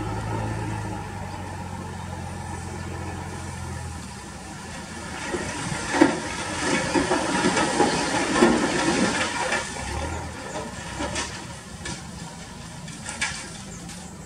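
Heavy trailer truck's diesel engine running while its hydraulic ram tips the dump bed up to unload soil. The steady engine hum gives way about five seconds in to a few seconds of crackling, rushing noise full of clicks, which then dies down.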